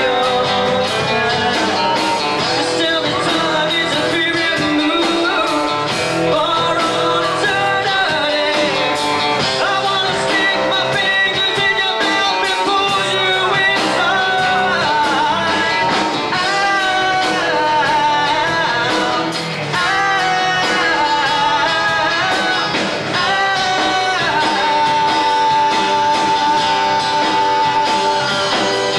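Live rock band playing a song: a singer over electric guitar and drums, the singing line wavering and then holding one long note near the end.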